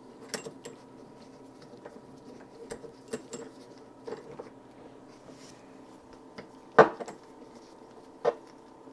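Scattered metal clicks and clinks of wrenches and small metal parts handled while 10 mm nuts are tightened down, with two sharper clanks about seven and eight seconds in.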